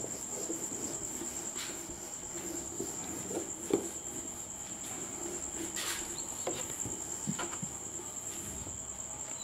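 Duster wiping marker off a whiteboard in repeated strokes, a faint rubbing with a few soft knocks. A steady high-pitched whine runs under it throughout.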